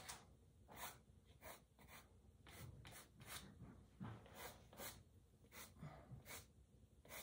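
Faint, short strokes of a soft pastel stick rubbed across the painting's surface, irregular, about one or two a second.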